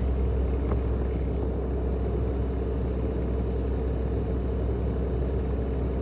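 Excavator's diesel engine running steadily nearby, a constant low drone with an even hum.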